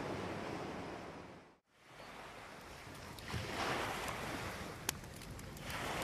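Ocean waves washing on a shore. The surf fades out to a brief moment of silence under two seconds in, comes back, and a wave surges in about halfway through. A single sharp click comes shortly before the end.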